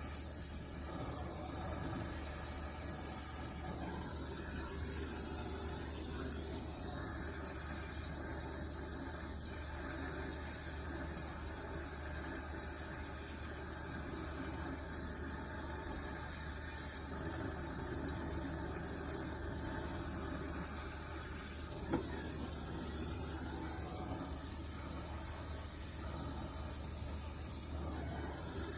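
Brazing torch burning with a steady gas hiss while copper refrigerant line joints are brazed under a nitrogen purge, with a low steady hum underneath.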